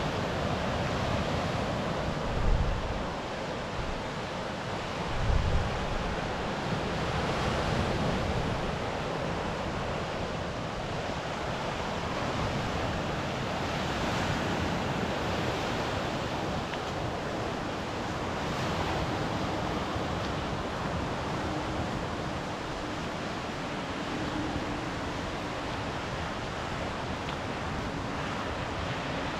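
Sea surf washing on the shore in slow swells, with wind on the microphone and two brief gusts buffeting it a few seconds in.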